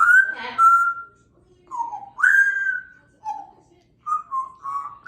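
African grey parrot whistling a string of clear notes: a rising whistle held for about a second, a lower falling note, another rising whistle held, then a few short notes near the end.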